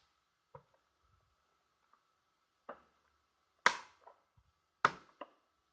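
Needle-nose pliers clicking against the small metal retaining clips on the back of an instrument cluster as they are bent straight: five sharp clicks spaced irregularly, the loudest two about a second apart near the end. A faint steady hum underneath.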